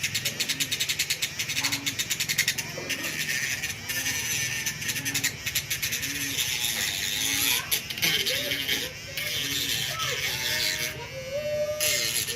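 Small electric power tool sanding carbon fiber: a high, hissing whine that pulses rapidly during the first few seconds, stops briefly near the end and starts again. Background music and voices sit low underneath.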